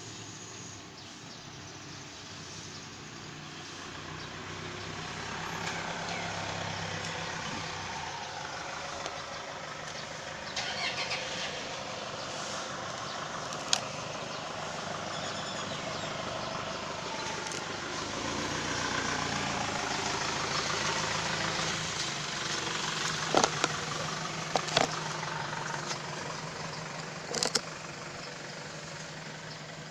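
A motor vehicle's engine running nearby, swelling and then fading as it passes, with a few sharp clicks.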